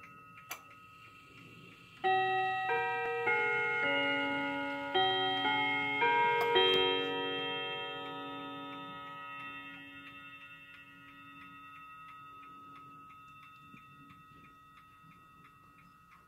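A clock ticking steadily, about three ticks a second. About two seconds in, a chiming clock strikes eight ringing notes in two groups of four, which ring on and fade away.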